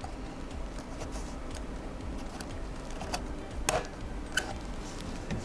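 Construction paper being handled and pressed into line by hand, with a few light clicks and taps, the sharpest a little under four seconds in.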